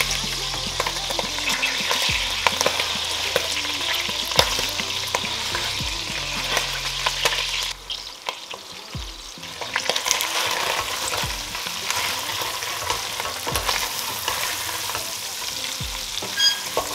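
Hardbody chicken pieces frying in a stainless steel pot, a steady sizzle with the clicks and scrapes of a wooden spoon stirring them. The sizzle dips briefly about eight seconds in, then comes back.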